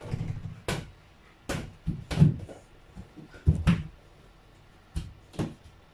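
Soft play ball striking a door-mounted Kaiser KW-577 toy basketball backboard and rim, then bouncing on the floor: about eight irregular knocks and thuds, the loudest a little past two seconds in.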